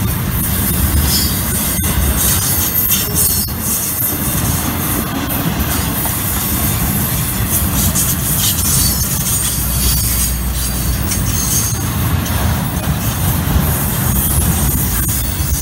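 Intermodal freight train cars rolling past at close range: a steady low rumble of steel wheels on rail, with a high hiss that flickers as the cars go by.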